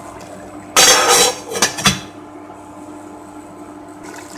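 A sharp clatter about a second in, followed by two smaller knocks: a lid or utensil knocking against a non-stick kadhai. A steady low hum runs underneath.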